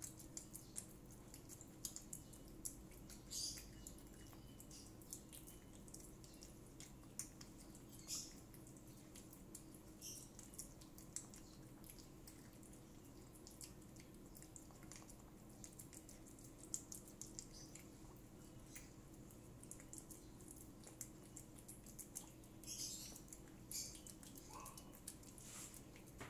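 A cat eating wet food: faint, irregular wet chewing and smacking clicks, a few of them close together at a time.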